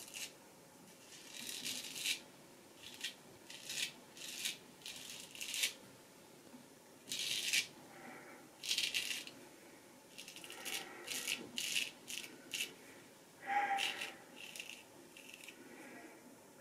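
Straight razor, a vintage Nashville Barber Supply Kaeser's No. 402, scraping through lathered stubble on the neck: a series of short, crisp strokes in quick runs with pauses between.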